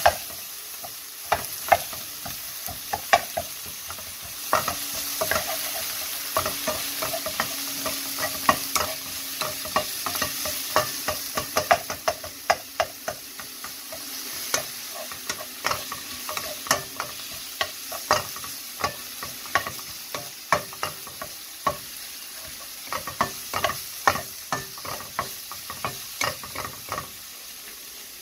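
Chopped green onion and minced garlic sizzling in a wok, stirred with a wooden spatula that scrapes and knocks against the pan many times. The knocks come thick and fast late on, then stop shortly before the end, leaving only the sizzle.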